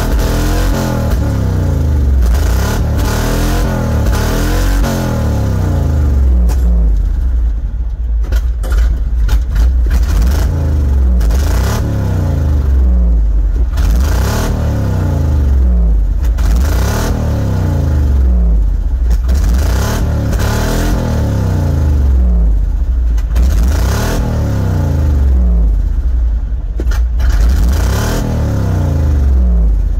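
Tow truck engine revved up and let fall back again and again, about every two to three seconds, with sharp crackles between some of the revs.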